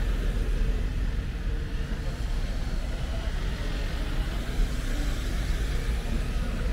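Jeep Wrangler driving slowly past with its engine running, over a steady low rumble of traffic.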